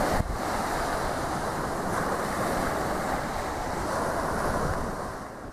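Small waves breaking on a sandy beach, with strong wind buffeting the microphone. The sound is steady and eases off near the end.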